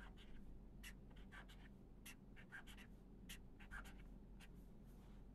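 Writing by hand on paper: a string of short, irregular, faint scratching strokes.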